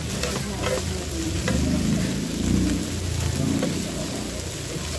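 Meat sizzling on a tabletop Korean barbecue grill plate, with a few sharp clicks in the first second and a half as metal tongs turn the pieces.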